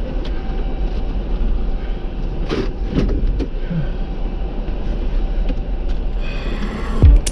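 Steady low rumble of an off-road vehicle driving, with a couple of short knocks about two and a half and three seconds in. Electronic music with a thumping beat comes in near the end.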